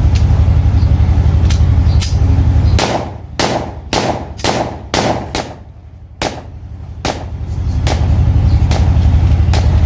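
A Darra-made 30 bore (7.62×25mm Tokarev) pistol being test-fired: a string of sharp single shots, irregularly spaced and coming about two a second at their quickest in the middle. A steady low hum runs underneath and dips during the fastest firing.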